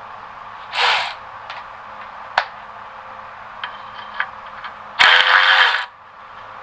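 Ratchet wrench clicking as bolts are worked loose: a short run of ratcheting about a second in, a few single clicks, then a louder run of ratcheting near the end.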